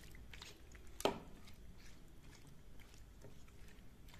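Silicone spatula stirring shell pasta through a thin milky sauce in a non-stick pan: soft wet squelching with light scattered taps, and one sharper knock about a second in.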